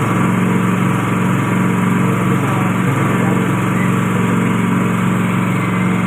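A200 coconut milk pressing machine running with a loud, steady mechanical drone.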